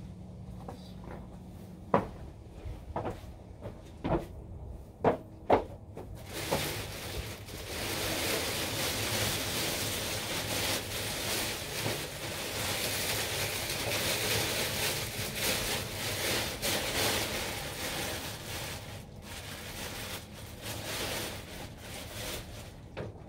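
Several sharp knocks and clicks, like things being handled and set down, in the first six seconds. Then a rustling, hissing noise that rises and falls for about fifteen seconds before easing off near the end.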